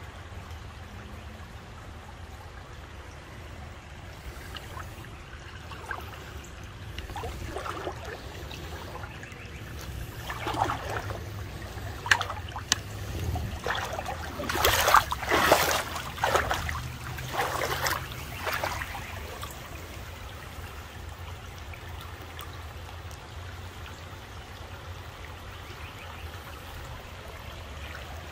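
Creek water trickling, with a run of irregular splashes and sloshes through the middle, loudest about halfway through, before it settles back to the steady trickle.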